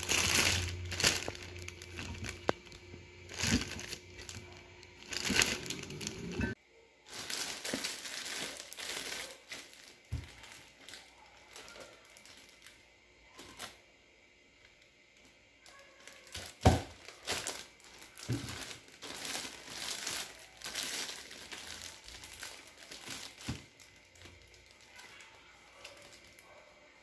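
Thin plastic bags crinkling and rustling in irregular bursts as chunks of cassava are pushed in and the bags are twisted and tied shut, louder for the first few seconds. One sharp knock a little past halfway.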